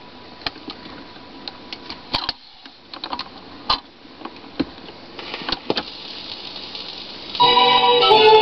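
Dual 1002E automatic record changer working through a change cycle: a run of irregular mechanical clicks and clunks from the changer mechanism. After about five seconds the shellac record's surface hiss and crackle rise as the stylus runs in, and music starts near the end.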